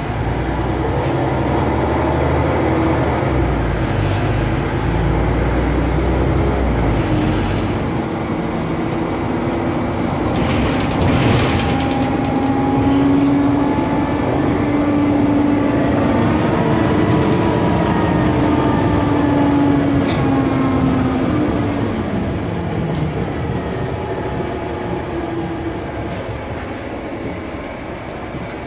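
Mercedes-Benz Conecto NGT city bus heard from inside the cabin: its turbocharged OM 936 G natural-gas engine and cooling fan running loud as the bus pulls away and drives on. A heavy low rumble for the first several seconds gives way to whining tones that rise and then fall away near the end.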